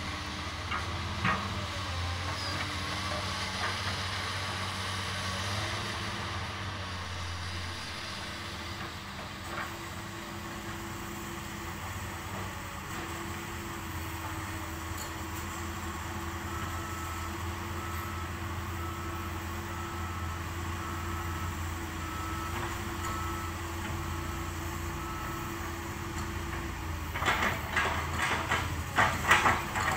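Komatsu PC200-8 hydraulic excavator's diesel engine running steadily at a distance, with a burst of clattering knocks near the end as the machine works.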